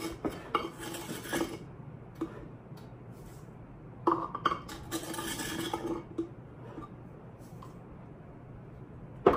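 A measuring cup scooping and scraping sugar out of a ceramic crock, with irregular clinks and knocks, some briefly ringing. A sharp knock near the end as the cup reaches the metal mixing bowl.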